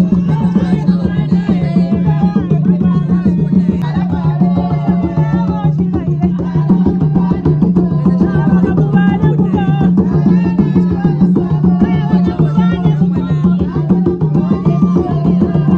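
Traditional hand drums beaten in a fast, steady rhythm, with a group of voices singing over them.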